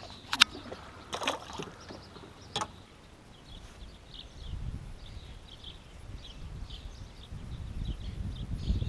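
A few sharp knocks and clicks from gear on a plastic fishing kayak, then water lapping and dripping around the kayak as it moves, with a gusty low rumble of wind on the microphone growing louder near the end.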